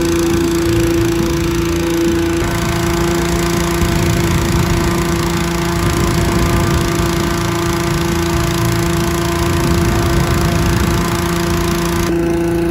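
Petrol-engined hot air balloon inflator fan running steadily, blowing cold air into the laid-out envelope during cold inflation.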